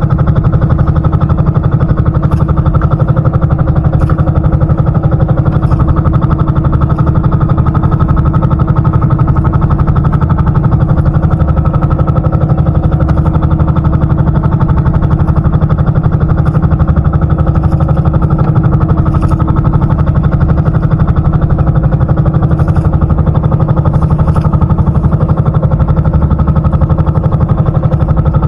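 A small engine running loud and steady at one constant speed, with a fast even pulsing.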